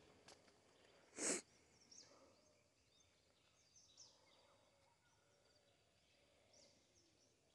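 Quiet outdoor ambience with faint, scattered high bird chirps. A single short puff of noise, the loudest sound, comes a little over a second in.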